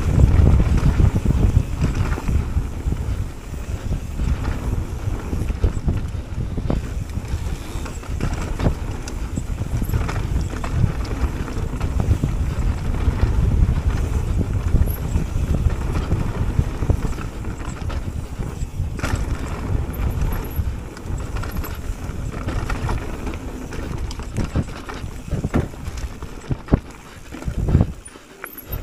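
Mountain bike riding down a dirt singletrack: a steady rumble of tyres and wind with many small knocks and rattles as the bike runs over bumps, roots and leaf litter.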